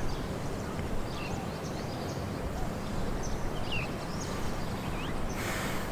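Wind blowing across the microphone, with short bird chirps scattered throughout and a brief burst of hiss near the end.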